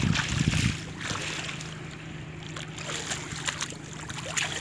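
Water splashing and sloshing as a wader hauls a fishing net through shallow muddy water, loudest in the first second, then small splashes and drips. A steady low hum runs underneath.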